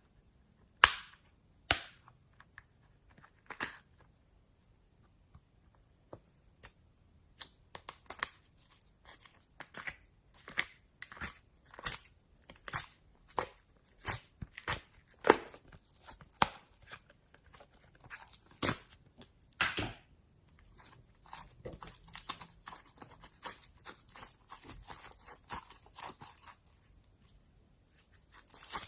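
Slime being handled: two sharp pops about a second in, then irregular wet clicks and pops, thickening into a dense crackle past the middle.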